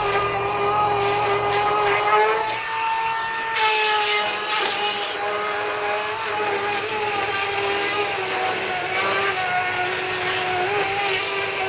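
EGO 18-inch 56-volt battery chainsaw cutting through a log: a steady electric motor-and-chain whine whose pitch shifts as the chain bites into the wood. It rises briefly about two and a half seconds in, with an added hiss.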